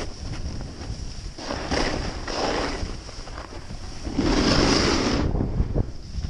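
Snowboard sliding and carving through soft snow: a hissing rush of snow with each turn, twice, the second about four seconds in and the loudest, over steady wind buffeting the microphone.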